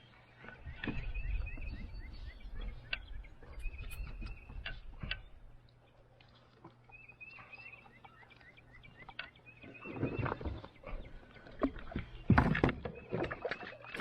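A songbird sings the same short phrase of quick hooked notes again and again. Beneath it are knocks and rustling from handling in a kayak, with louder bumps about ten and twelve seconds in.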